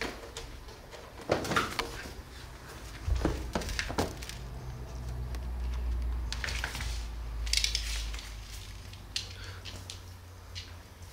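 Cat scratching and shifting about in a plastic litter box of granular litter: several crunchy scratches in bursts, then a few lighter clicks near the end.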